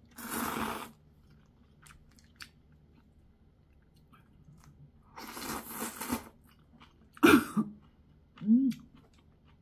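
A person slurping spicy ramyeon noodles, once just after the start and again about five seconds in, with chewing between. Short louder mouth or voice sounds come near the end.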